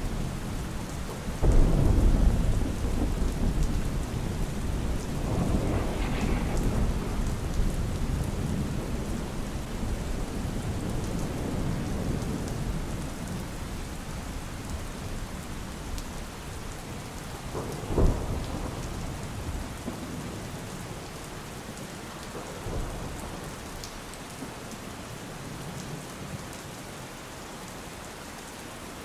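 Steady rain with thunder: a loud clap about a second and a half in that rumbles on for several seconds, and a shorter, sharper crack a little past halfway.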